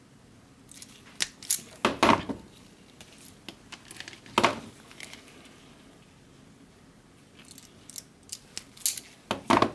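Hand-held wire stripper clicking and snapping as it grips a wire and pulls the insulation off. The sharp clicks and crunches come in clusters, loudest about two seconds in and again near the end, with a quiet stretch in the middle.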